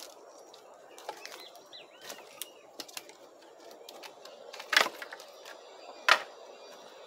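Pieces of cut wood knocking together as they are stacked: scattered light clicks, then two loud sharp knocks a little over a second apart near the end.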